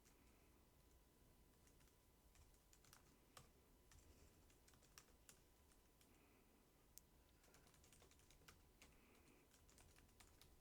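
Faint computer keyboard typing: scattered, irregular key clicks barely above a quiet room hiss.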